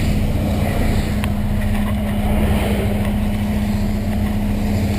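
Volkswagen Santana's 2.0-litre AP four-cylinder engine running at a steady speed: a constant low drone holding one even tone.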